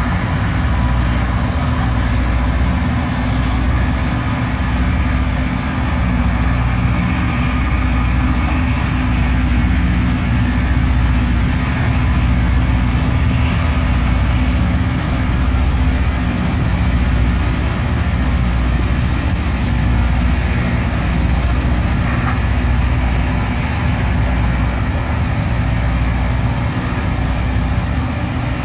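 Loram rail grinding train working along the track, its diesel engines and rail-grinding stones making a steady, loud low drone with a noisy hiss above it.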